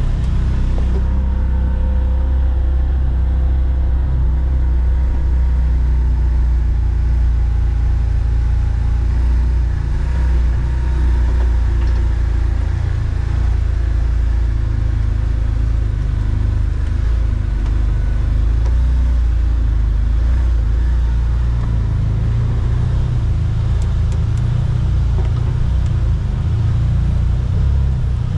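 Side-by-side UTV running at trail speed, a steady low engine rumble with no sharp revving.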